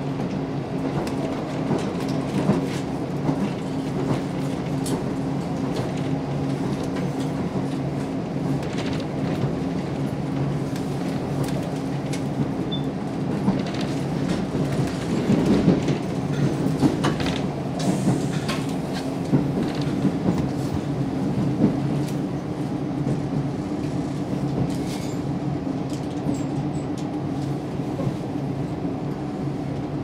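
Inside a KiHa 54 diesel railcar under way: a steady diesel engine drone with the wheels clicking over rail joints. The clatter grows louder for a few seconds about halfway through.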